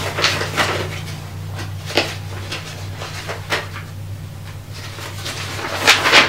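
Several short rustles and knocks of something being handled, the loudest near the end, over a steady low electrical hum.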